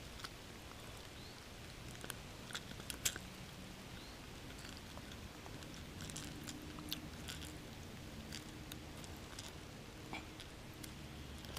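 Faint scattered clicks and small rattles of a hard fishing lure and its treble hooks being worked out of a bass's mouth by hand, with a few sharper ticks in little clusters.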